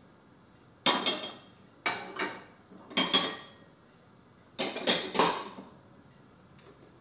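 A metal spoon clattering and scraping against a steel cooking pot while the dal is stirred: four short bursts of clinks, at about one, two and three seconds in and a longer double one near five seconds.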